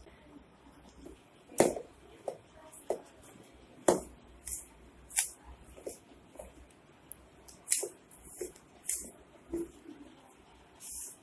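Flour and water being mixed by hand into chapati dough in a stainless steel bowl: irregular knocks and scrapes of the hand against the steel, with short hissy rustles of the dry, crumbly dough.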